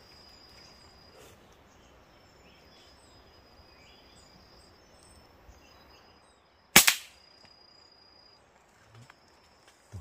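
A single sharp gunshot about seven seconds in, the loudest thing here, with a brief ring after it. Before it, a faint, high, steady insect-like trill comes and goes.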